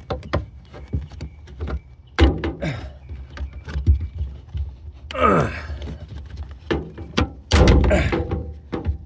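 Hands working a plastic cab exhauster vent loose from the back wall of a Ram 1500 pickup cab: a string of plastic clicks and knocks, with a short sliding tone about five seconds in and a louder scraping burst near the end. The vent is held in only by plastic prongs and a rubber seal.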